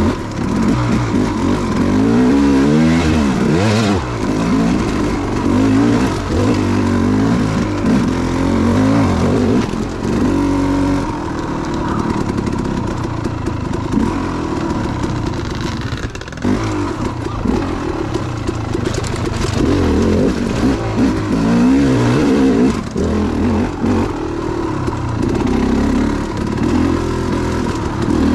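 KTM 300 two-stroke dirt bike engine being ridden, its pitch rising and falling with the throttle.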